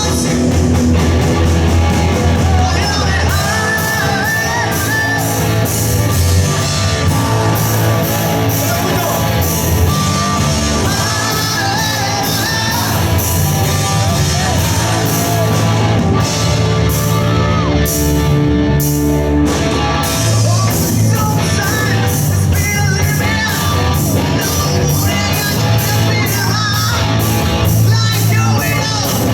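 A live rock band playing loud in a large hall: sung vocals over electric guitar, bass and a steady drum beat.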